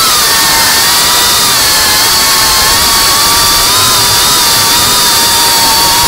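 FPV quadcopter's brushless motors whining, a steady high-pitched drone over rushing air, the pitch wavering slightly with throttle and dipping a little near the end.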